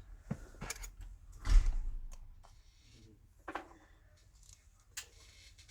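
Scattered clicks and light knocks from a smartphone being handled and set down on a work surface, the loudest a thump about a second and a half in.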